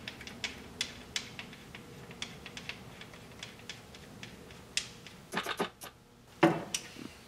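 Light metallic clicks and taps of a hand tool fastening a wire's ground terminal under a bolt on the gearbox top cover. The clicks come singly and irregularly, with a louder flurry about five and a half seconds in and a sharp knock about a second later.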